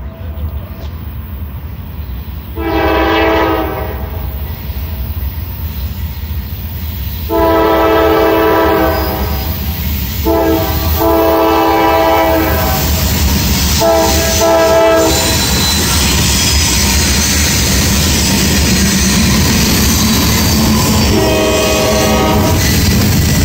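Norfolk Southern freight train's diesel locomotive sounding its multi-note horn for the grade crossing: a brief blast, then two long blasts and a short one, and another long blast near the end. Under the horn, the low rumble of the locomotive and the clatter of freight-car wheels grow louder as the train passes close by.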